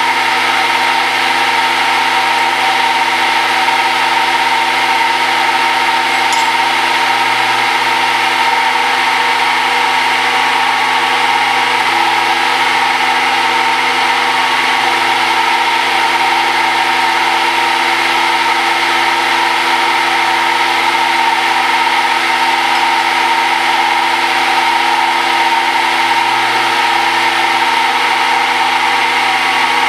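Machine spindle running steadily while drilling the ports of a muzzle brake under flood coolant: an even hum with several held tones that does not change.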